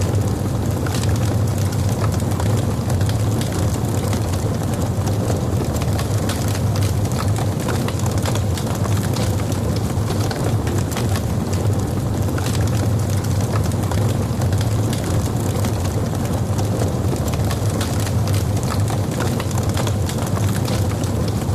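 Logs burning in a fireplace: a steady low rumble of flames with many small crackles and pops.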